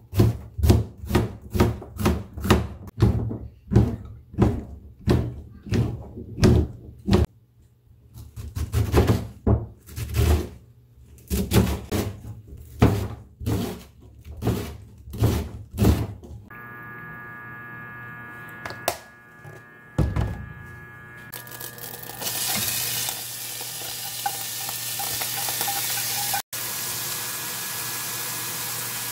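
Kitchen knife chopping an onion and then a large green onion on a plastic cutting board, about two strokes a second, with a short pause about a quarter of the way in. The chopping stops, a steady hum follows, and then the chopped green onion sizzles as it fries in a steel pot.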